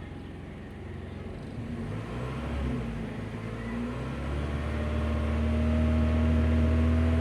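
Car petrol engine revved from idle with the accelerator: the revs climb over a few seconds, then are held steady at a higher speed. The engine has a slight shake that is being checked for misfire.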